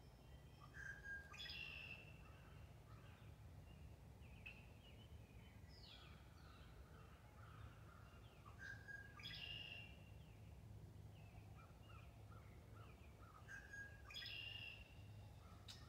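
Songbirds singing faintly: one bird repeats a short, bright phrase about every four seconds, with softer chirps from others in between.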